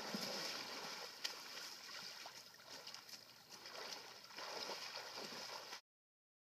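Water splashing and sloshing as people wade through a shallow pond. The sound cuts off suddenly near the end.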